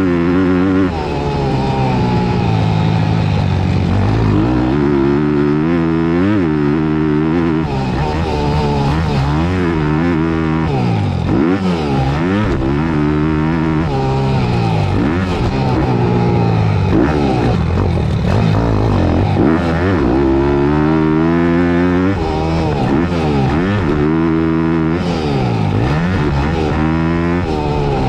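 Thumpstar 190 pit bike's single-cylinder four-stroke engine being ridden hard, heard close up from on board: the revs climb and drop again and again, every second or two, as the throttle is opened and shut around the track.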